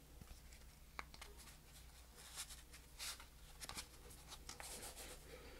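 Near silence with faint handling noise: a few small clicks and soft rustles as over-ear headphones are picked up and put on, over a low steady room hum.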